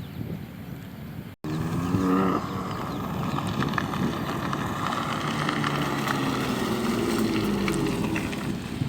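BMW M3 Competition (F80) with an M Performance exhaust, its twin-turbo straight-six accelerating hard. The engine note rises sharply after an abrupt cut about a second and a half in, then holds loud with slow rises and falls in pitch.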